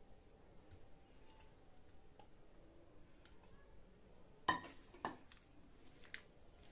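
Faint soft handling sounds, then two ringing clinks of a stainless steel bowl about half a second apart, as raw marinated chicken is dropped in and mixed by hand.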